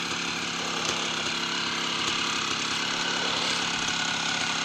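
Honda CR250's single-cylinder two-stroke engine idling steadily.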